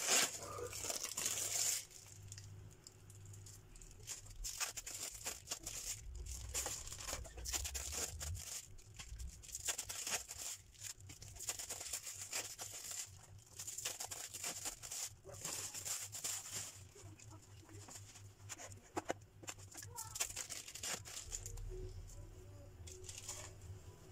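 Plastic film crinkling and tearing in irregular rustles and crackles, loudest in the first two seconds: cheese slices being unwrapped.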